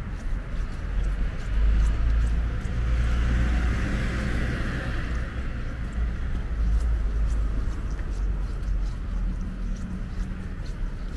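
Street ambience: a steady low rumble of city traffic, with a vehicle passing about three to five seconds in. Light clicks of footsteps on the pavement run through it.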